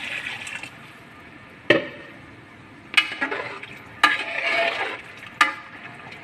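Water pours from a pitcher into a pot of stew and stops within the first second. A metal ladle then stirs the stew, knocking against the side of the aluminium pot four times, about a second apart, with a brief slosh after each knock.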